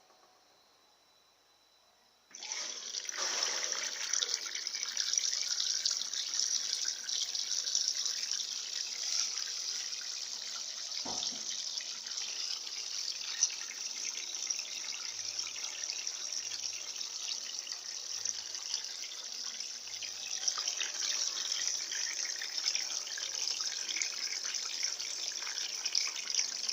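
Electrolux LF80 top-loading washing machine filling: water starts gushing into the drum about two seconds in and keeps running steadily. One short knock about halfway through.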